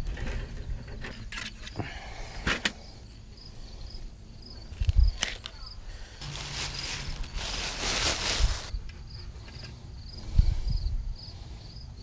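Handling noise from wire mesh and bricks: scattered knocks and clinks, a couple of seconds of scraping rustle past the middle, and a thud near the end. A cricket chirps steadily in the background, about two or three chirps a second.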